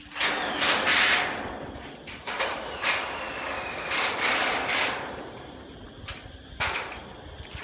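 Handheld power tool working on galvanized steel roof trusses, running in four short bursts of a second or less each.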